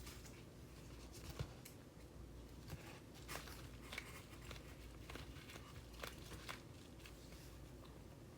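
Faint scattered clicks and rustles over a low steady hum, with one sharper click about a second and a half in.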